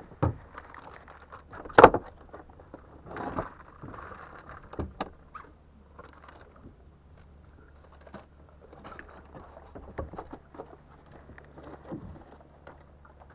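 Knocks, clatter and rattling of fishing gear being handled in a small boat, the loudest knock about two seconds in.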